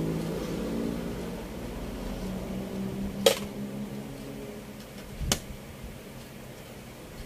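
Two sharp clacks of hard objects on a workbench, about two seconds apart, the first a screwdriver being set down among the tools. Under them a low steady hum fades out around the middle.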